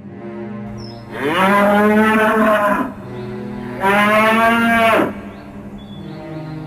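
Cow mooing twice: a long moo of nearly two seconds, then a shorter one about a second later.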